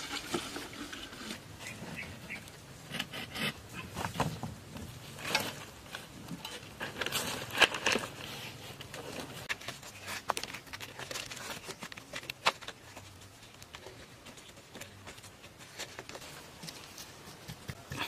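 Scattered clicks, knocks and scrapes of rough stones being handled and set by hand, and of a hand rubbing over a plastered surface.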